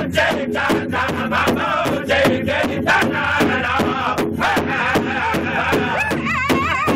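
Powwow drum group singing in chorus around a large hide-headed drum, the drummers striking it together in a steady beat of about four strokes a second. About six seconds in, high wavering voices rise above the drum.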